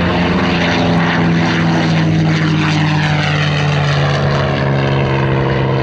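P-51D Mustang's Packard Merlin V-12 engine and propeller running at high power in a low flyby, a steady drone that slides slowly down in pitch as the plane goes past.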